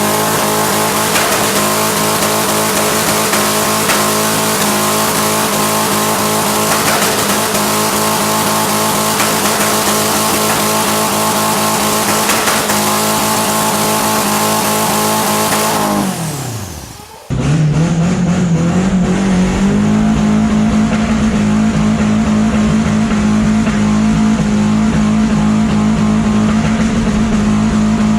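Mazda four-cylinder fitted with four K03 turbochargers, held at high, steady revs with a strong hiss over the engine note. About sixteen seconds in the revs drop away sharply; a second later the sound comes back suddenly and climbs to high steady revs again.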